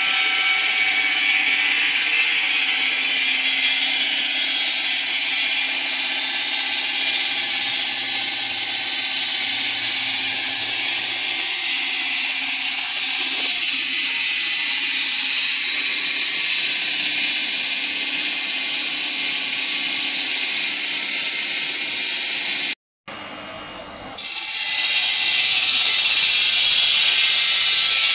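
Thin stone veneer saw running, its large blade spinning and cutting granite blocks fed past it on the conveyor belt: a loud steady grinding whine. It cuts out briefly about three-quarters of the way through, then comes back louder and higher.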